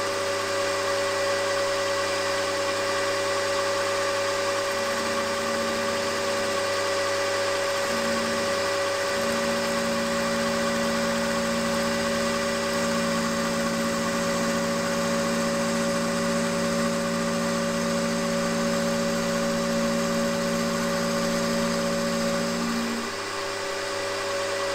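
Milling machine spindle running, with an end mill cutting round the little end of a conrod on a rotary table. A steady motor whine runs under a lower hum that shifts in pitch a few times and stops near the end.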